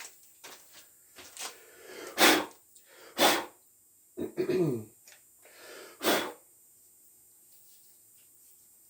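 A man clearing his throat and coughing, about five short bursts over the first six seconds.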